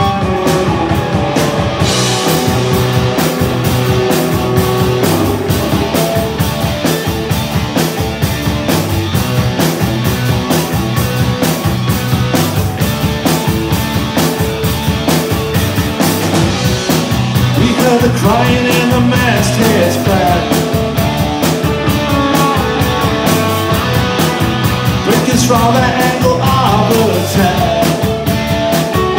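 Live rock band playing: electric guitars, bass guitar and drums, with a sung vocal line coming in about two-thirds of the way through and again near the end.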